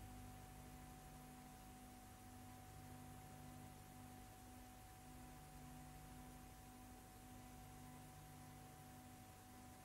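Near silence: a faint steady electrical hum with a thin high tone and light hiss, and no sound of the race itself.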